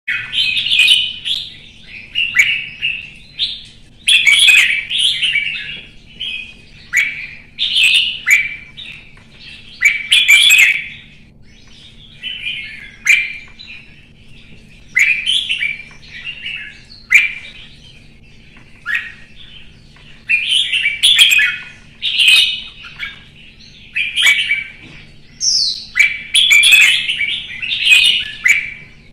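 Red-whiskered bulbul singing in short, rich chirping phrases, one every second or two with brief pauses between.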